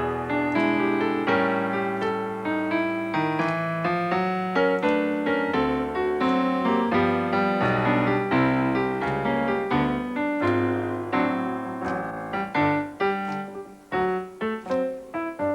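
Solo piano playing old-fashioned blues/boogie-woogie, with a running bass line under the melody; near the end it thins out into separate chords with short pauses between them.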